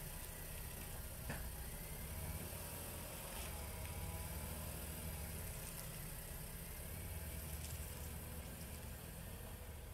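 A car engine idling steadily, a low even hum, with a couple of faint clicks over it.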